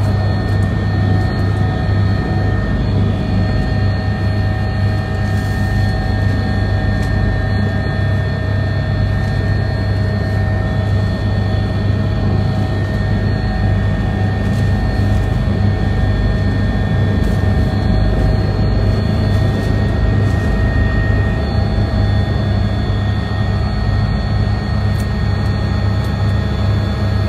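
Steady, loud drone of a helicopter in flight heard from inside the cabin: a low hum with several thin whining tones held steady above it.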